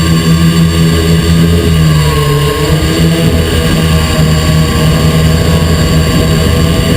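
XP2 quadcopter's electric motors and propellers humming steadily, loud and close because the camera rides on the quadcopter itself; the pitch shifts briefly about two seconds in.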